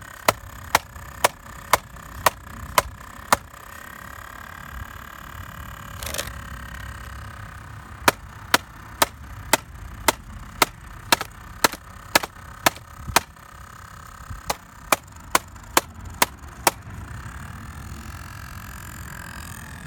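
An iBook clamshell laptop clicking sharply about twice a second in several runs, over a faint wavering whine. The noise comes from inside the laptop, and the owner thinks it is probably the hard drive.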